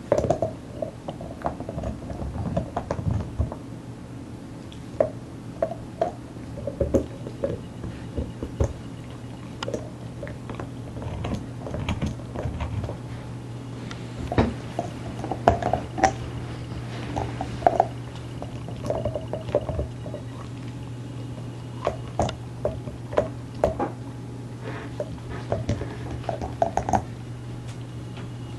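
German Shepherd chewing and gnawing on a bone: irregular wet, squishy crunches and sharp clicks of teeth on the bone, coming in uneven clusters.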